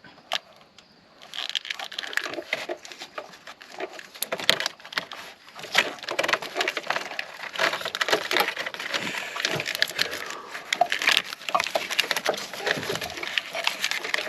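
Hands working plastic parts and clips in a car's engine bay: a dense, irregular run of clicks, cracks and rustling that starts about a second in.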